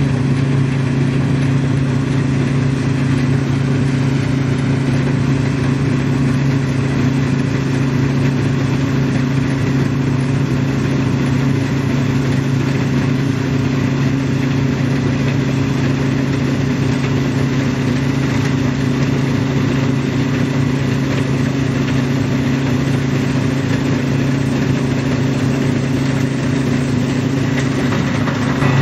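New Holland CX740 combine harvester running steadily while cutting winter barley: a constant engine and threshing drone that holds the same pitch and level throughout.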